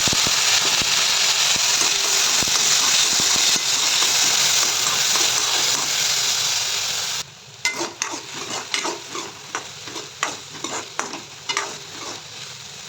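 Soaked moong and masoor dal hitting hot ghee in a kadai with frying onion and cumin, giving a loud, steady sizzle. About seven seconds in, the sizzle drops suddenly to a softer frying hiss. Repeated scraping strokes follow as the dal is stirred in the pan.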